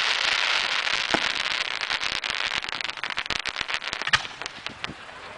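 Aerial fireworks shell bursting into crackling stars: many rapid sharp pops that thin out and fade toward the end. A louder bang comes about a second in, and another about four seconds in.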